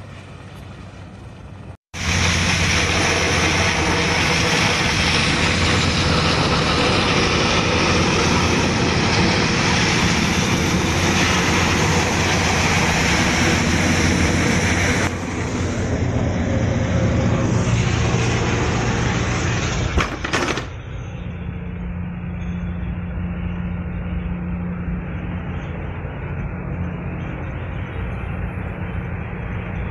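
Loud steady rushing noise over a low engine drone as firefighting boats' water cannons spray a burning ship. After a sudden drop about two-thirds through, a quieter, steady boat engine drone heard inside the wheelhouse.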